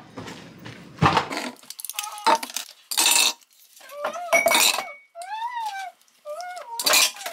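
Small items clinking and rustling as they are handled and packed into a bag. From about two seconds in, a small voice makes several short, high calls that rise and fall in pitch.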